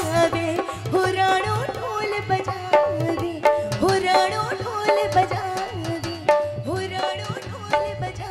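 Live Rajasthani devotional folk music: a dholak keeps a steady hand-drum rhythm under a melody line that holds notes and slides between them.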